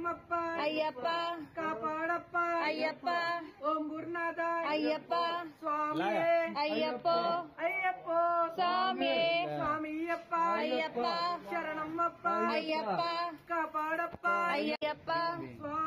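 Devotional singing: a melodic vocal line over a steady, held drone note.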